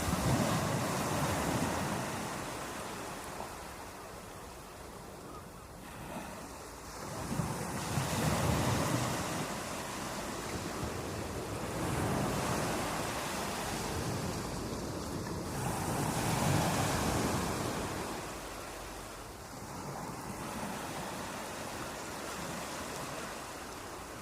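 Sea waves breaking and washing on the shore, the surf swelling and fading in repeated surges every few seconds.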